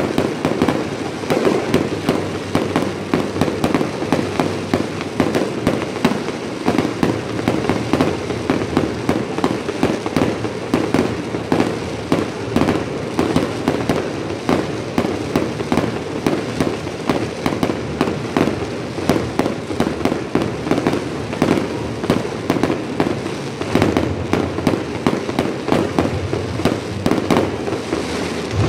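Aerial fireworks going off in a rapid, unbroken barrage of bangs and crackles, many per second.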